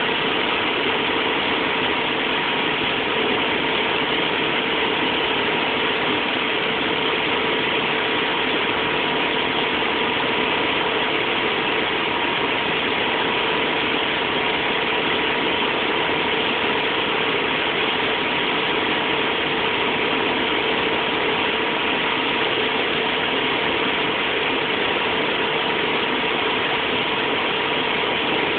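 Motorboat engine running steadily at towing speed, with a steady hum under a constant rushing noise of wind and water.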